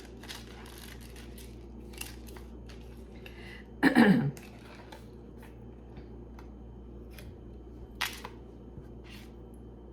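A piece of costume jewelry being taken off its backing card: scattered sharp clicks and handling sounds, with one louder sound about four seconds in that falls in pitch.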